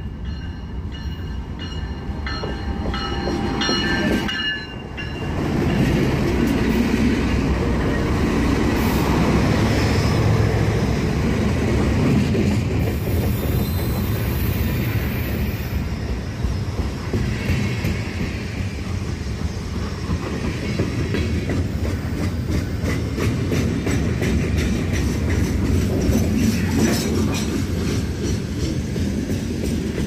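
Diesel freight train passing close by: the locomotive's rumble builds and goes by in the first few seconds, then a long string of loaded lumber flatcars rolls past with a steady clickety-clack of wheels over the rail joints.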